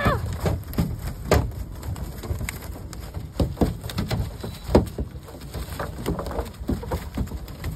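Mullet flopping on a boat deck inside a cast net: irregular wet slaps and thumps, some louder than others.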